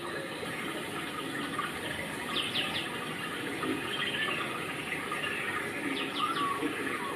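Steady rushing background noise like running water, with a bird chirping a few quick notes about two and a half seconds in and again about six seconds in.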